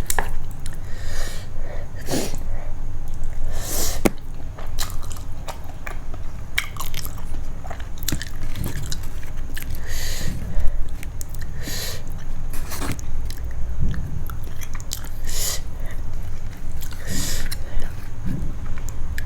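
Close-miked eating of Korean instant noodles: steady chewing with irregular wet bites and smacks.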